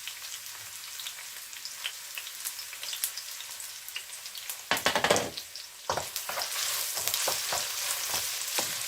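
Hot vegetable oil crackling in a wok. About five seconds in, chopped white onion goes into the oil with a loud burst, and a louder, denser sizzle follows as it starts to fry.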